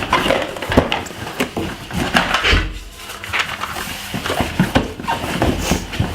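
Packaging rustling, with irregular clicks and knocks as drone parts are handled and set down during unboxing.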